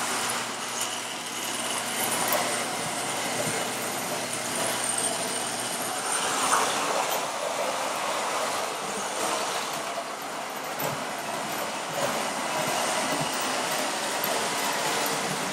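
Pre-war Lionel O-scale model trains running on three-rail tinplate track: a steady clatter of small metal wheels and electric motors. A low steady hum underneath stops about six seconds in.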